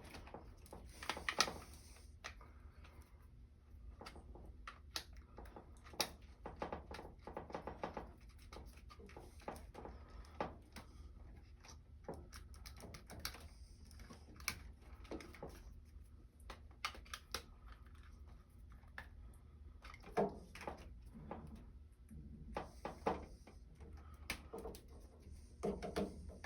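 Irregular small clicks and rattles of hands pushing spade quick-connect wire terminals back onto a new beater motor overload in a Taylor soft serve machine, over a low steady hum.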